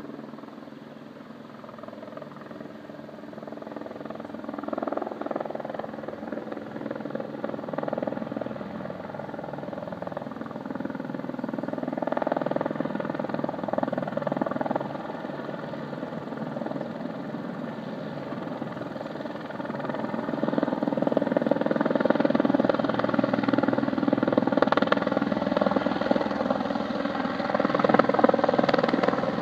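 Helicopter flying in with a load slung beneath it on a long line, its rotor and engine growing steadily louder as it approaches.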